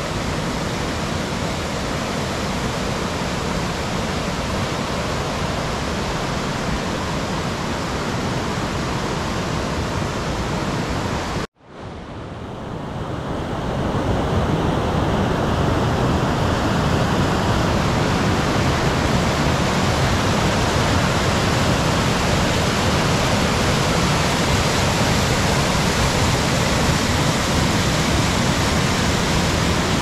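Steady rush of a small waterfall and rapids pouring over bare rock ledges. A little over a third of the way in the sound cuts out abruptly, then fades back in over a couple of seconds and runs on slightly louder and fuller.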